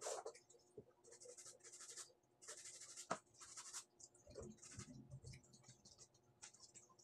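Faint hand-scrubbing of wet clothes in a plastic basin: a run of short swishing strokes of fabric rubbed on fabric.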